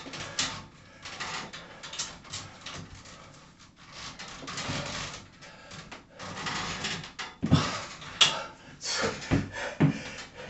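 Heavy breathing through a set of pull-ups on a home pull-up tower, then several sharp knocks and clanks near the end as he lets go of the bar and steps down off the frame.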